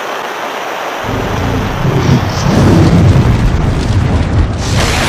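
Designed logo-intro sound effect: a loud rushing hiss joined by a deep rumble about a second in that builds, swelling into a louder burst of hiss near the end, like thunder and fire.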